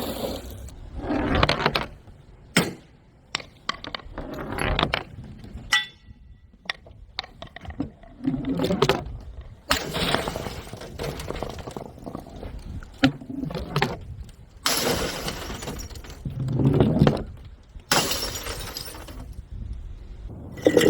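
Balloons popping, one sharp bang after another at irregular gaps of a second or a few seconds, with longer noisy stretches between the pops.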